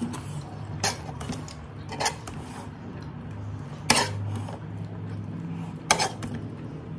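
A metal utensil clinking against a metal dinner plate four times, the two loudest about four and six seconds in, over a steady low hum.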